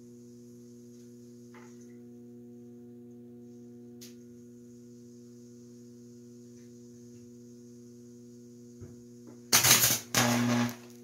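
Steady mains hum and buzz from a bank of microwave oven transformers driving a high-voltage arc. About nine and a half seconds in, the arc flares into two loud crackling bursts with a heavy low buzz, throwing a shower of sparks, then drops back to the hum.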